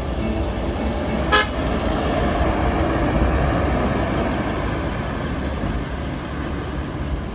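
A bus passing close with its engine running and a steady low rumble, and one short horn toot about a second and a half in.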